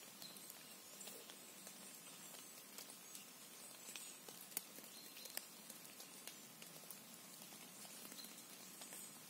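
Quiet forest ambience: a faint steady hiss with scattered small ticks and patters, and two sharper clicks near the middle.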